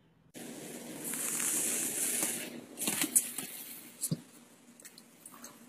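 A dog's paw scrabbling and scraping at a wooden floor and the bottom of a white panel. It makes a rustling, scratching noise with a few sharp clicks and a short knock about four seconds in.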